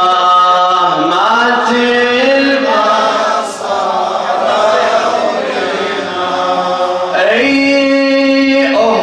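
A male radood chanting a Shia mourning elegy, holding long drawn-out notes that glide from pitch to pitch. About seven seconds in, the voice rises to a higher held note.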